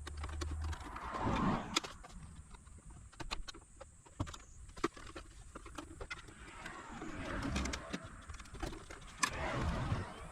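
Clicks, taps and scraping from handling the plastic case and tools while a portable power station is being taken apart, with three longer rubbing or scraping passages among the sharp clicks.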